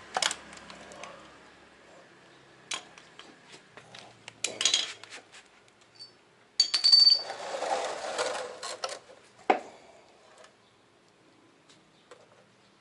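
A running engine cuts off right at the start, followed by scattered metallic clicks, clinks and clatters of tools and parts being handled during oil-change work, busiest about two-thirds of the way in, ending with a single knock.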